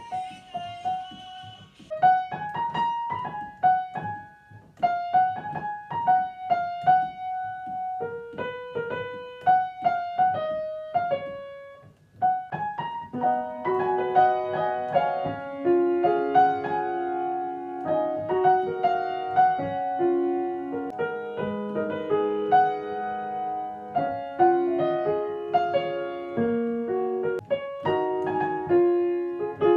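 Piano played by ear. A single-note melody runs for about the first twelve seconds, then lower chords come in under it and the playing continues with both hands.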